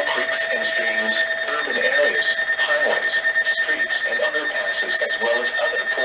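Weather alert receivers sounding a Flash Flood Warning activation: a steady high-pitched alert tone, with radio voice audio mixed underneath.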